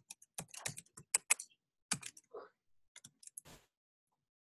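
Typing on a computer keyboard: a quick run of keystrokes in the first second and a half, then a few scattered key presses as a terminal command is typed and entered.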